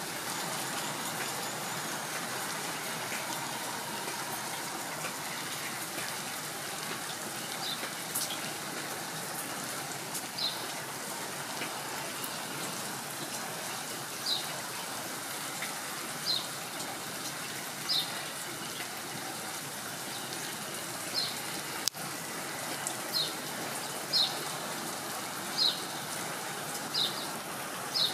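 Steady rain falling on a wet road and grass, a continuous hiss. Short high peeps cut through it every second or two, more often in the second half, and there is a single sharp click about two-thirds of the way through.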